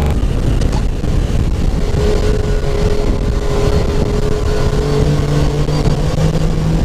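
Supercharged Yamaha YXZ1000R side-by-side's three-cylinder engine running hard under load as the vehicle drives fast over sand, heard from inside the open cab as a loud, steady rumble. Its note shifts a little lower about two-thirds through, then edges up near the end.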